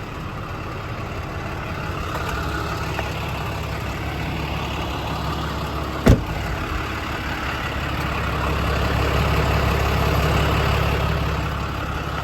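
Cummins 6.7 inline-six turbodiesel idling steadily, with one sharp knock about six seconds in and the engine sound swelling slightly a little later.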